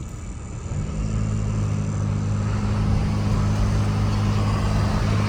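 Chevrolet S10 pickup on the move: the engine note steps up and holds steady from about a second in, over tyre noise on a wet road.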